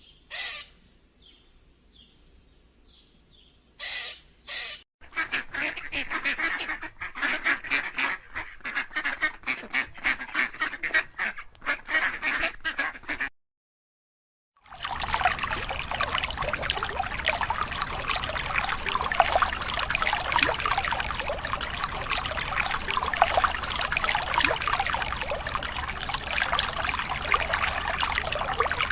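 Birds calling: a run of rapid repeated calls, a short break, then a dense, unbroken chatter of many birds calling at once, like a flock.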